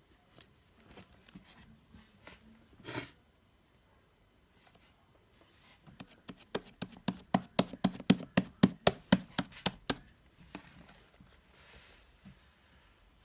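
Fluffy slime, made from glue, shaving cream and contact lens solution, being squished and poked by hand. There are scattered soft clicks and a brief burst about three seconds in, then a run of sticky pops at about five a second for about four seconds near the middle.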